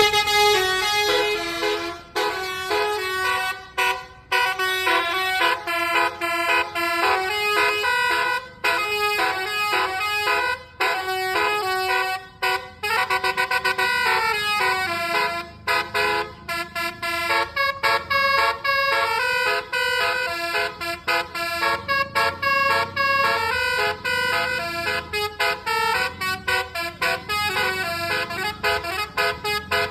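Bus telolet melody air horn playing a long tune, its pitched notes stepping quickly one after another with brief gaps.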